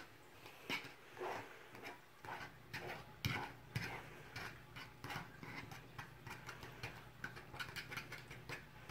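Metal fork mashing banana and egg in a plastic mixing bowl, making irregular clicks, taps and scrapes against the bowl.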